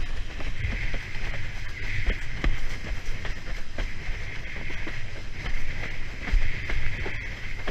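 Windsurf board skimming over chop: water hisses past and the hull slaps on the waves in frequent short hits, under a steady low rumble of wind on the microphone.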